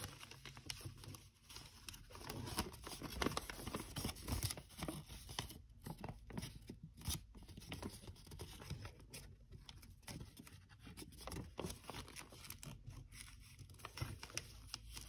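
Sheet of 80 gsm origami paper rustling and crinkling under the fingers as its flaps are opened and reverse-folded inward, in faint, irregular crackles.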